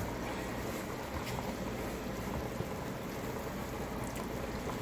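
Steady crackling hiss of a pot simmering on the stove. A few faint clicks come from a wooden spoon stirring ogbono powder into melted palm oil in a plastic tub.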